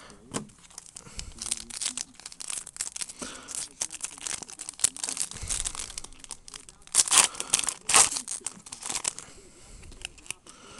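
Foil trading-card pack wrapper crinkling and tearing open, with a run of short rustles as the cards are handled. The loudest crackles come about seven to eight seconds in.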